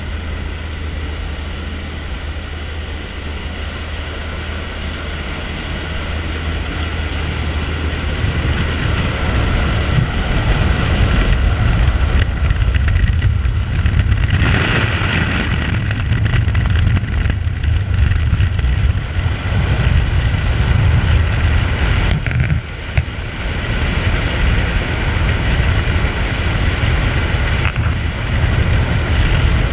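Steady engine drone of the jump aircraft, getting louder and heavier about eight seconds in.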